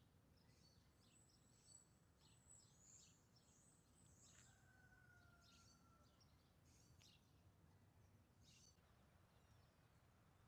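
Near silence, with faint, short, high bird chirps.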